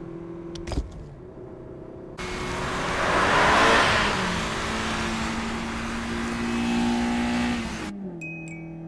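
Anime race sound effects of a Toyota AE86's engine: a clunk under a second in as the gear lever is worked, then from about two seconds in a sudden loud rush of engine noise as the car drives hard through a corner. The rush cuts off abruptly near the end.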